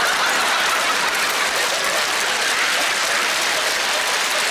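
Theatre audience applauding steadily and laughing in response to a joke.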